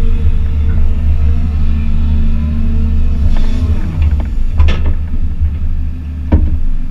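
Excavator's diesel engine running with a deep, steady drone, heard from the operator's cab as the boom and bucket work. Two sharp knocks stand out, about two-thirds of the way through and again near the end.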